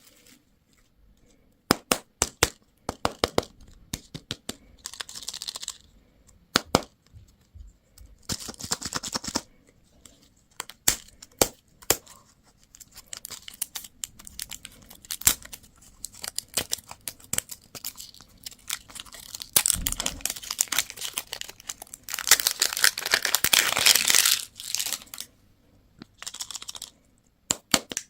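Candy and toy packaging being unwrapped by hand: wrappers tearing and crinkling in several bursts, the longest near the end, between many sharp plastic clicks and snaps.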